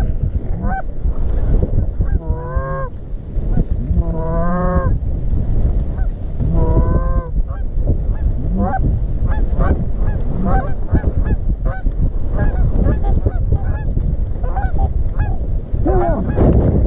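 Geese honking as a flock comes in, with many short honks overlapping throughout. A few longer, wavering honks stand out about two, four and seven seconds in.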